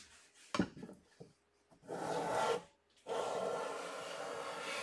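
Hand plane shaving the edge of a wooden board: a short rasping stroke about two seconds in, then a longer stroke of nearly two seconds, after a single knock of the tool on wood near the start.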